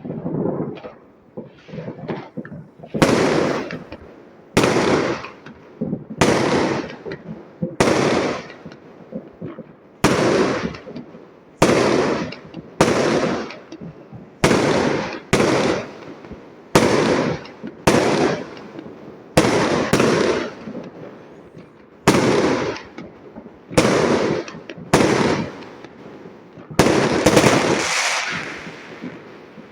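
Fireworks going off: a few small pops, then from about three seconds in a run of about twenty loud bangs, one every second or so, each trailing off in an echo.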